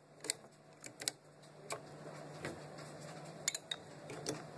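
A series of light clicks and knocks from a metal adjustable flask clamp being set onto a magnetic shaker platform and a glass Erlenmeyer flask being fitted into the clamp, over a faint steady hum.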